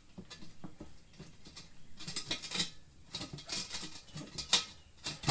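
Light metal clicks and scrapes of hand tools working a tire onto a wheel rim, with louder scraping bursts about two seconds in and again near the end.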